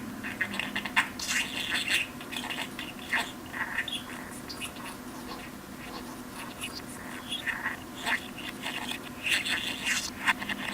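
Budgerigar chattering: a rapid string of short chirps, clicks and scratchy warbles, busiest about a second in and again near the end.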